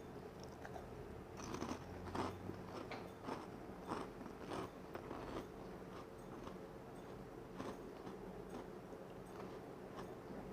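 Mouth sounds of someone eating pie: a bite, then chewing heard as a quick run of sharp clicks from about a second and a half in, thinning to a few scattered clicks after the middle.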